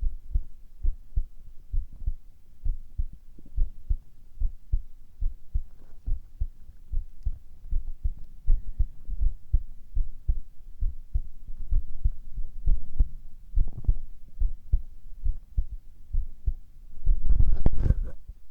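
A person's heartbeat, picked up close, thumping in a steady low rhythm. Near the end comes a louder burst of rustling noise lasting about a second.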